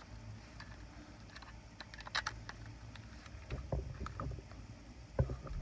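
Handling noise from a plastic power strip and its cord being gripped and moved on carpet. Light clicks and knocks come scattered through it, several close together a little past the middle, and a louder knock near the end.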